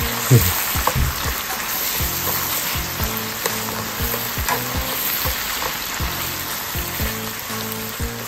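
Strips of madake bamboo shoot sizzling in oil in a frying pan as they are stir-fried, with frequent clicks of chopsticks against the pan.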